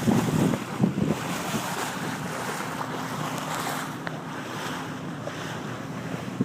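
Speedboat under way: a steady engine drone under rushing water, with wind buffeting the microphone and a few louder knocks in the first second.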